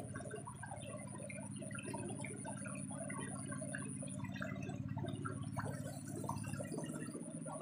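Water trickling and bubbling, with a low steady hum and a thin high-pitched whine that breaks off for about a second midway.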